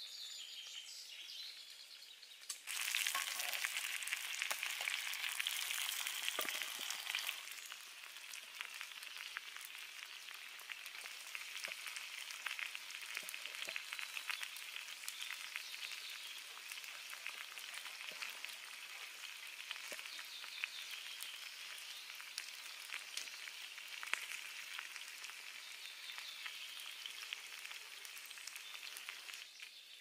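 Chicken pieces frying in oil in a pan over campfire coals, a steady sizzle full of small crackles and pops. The sizzle swells louder about three seconds in and eases back down a few seconds later.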